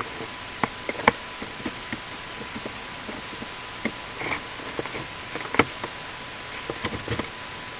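Handling noise: light clicks and knocks scattered irregularly, about a dozen in all, with a small cluster near the end, over a steady faint hiss and a thin high tone.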